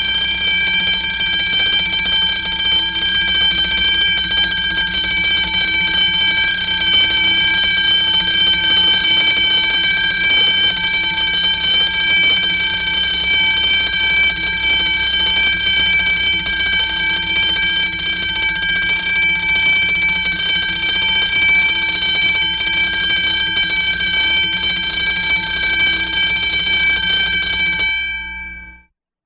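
School class-period bell ringing in one long, steady ring that dies away about a second before the end.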